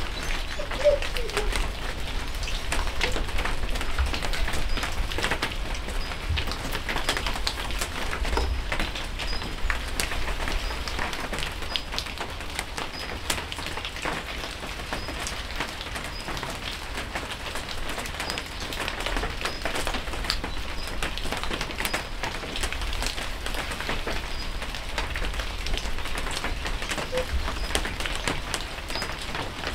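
Steady rain falling, with many individual drops pattering and ticking close by.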